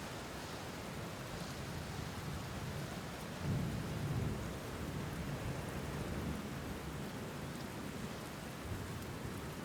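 Steady rainfall, with a low rumble of thunder swelling about three and a half seconds in.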